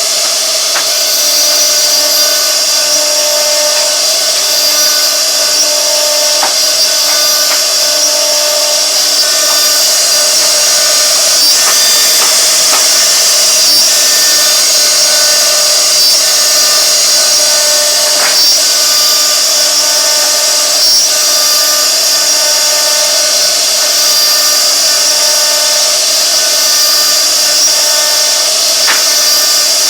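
CNC router spindle running steadily at high speed as the bit carves wood: a continuous high whine over a steady lower tone, with an occasional faint tick.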